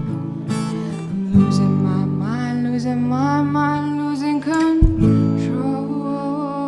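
Acoustic guitar strummed with a voice holding long sung notes, a live acoustic song performance.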